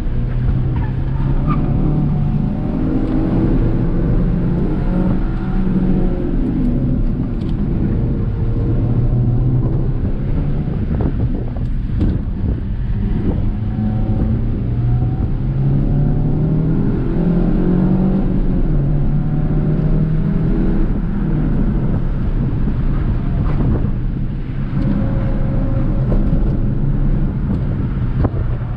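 Suzuki Swift Sport ZC31S's 1.6-litre four-cylinder engine, fitted with an aftermarket sport rear exhaust box and an open air filter, heard from inside the cabin while driven hard on track. The revs climb and drop again and again through gear changes and corners, over tyre and wind noise, with a short lift off the throttle near the end.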